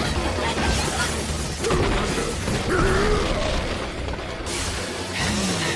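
Anime fight-scene soundtrack: music mixed with crashing, booming impact effects and mechanical sound effects.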